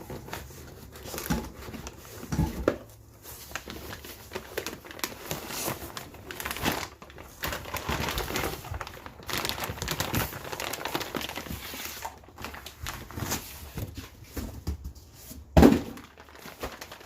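Thick, heavy plastic wrapping and box packing crinkling and rustling as a crankshaft is unpacked by hand, with a few knocks and one loud, heavy thump near the end.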